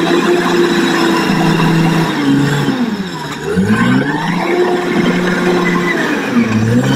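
Crawler bulldozer's diesel engine running steadily as the machine works loose soil, its engine speed sagging and climbing back about three seconds in and again near the end.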